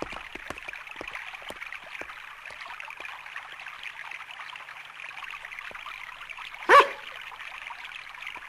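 A dog gives one short, loud bark about seven seconds in, over a steady rush of flowing water.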